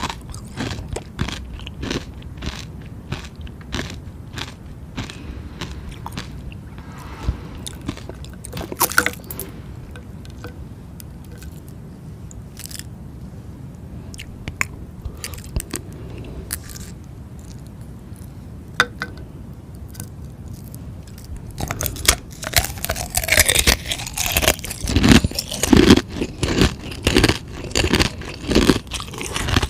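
Close-miked biting and crunching chewing of frozen ice: scattered sharp crunches, a quieter stretch in the middle, then dense, louder crunching through the last third.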